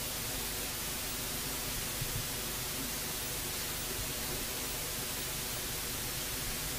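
Steady hiss and static of an old tape recording, with a faint low hum under it and a couple of faint soft knocks about two seconds in.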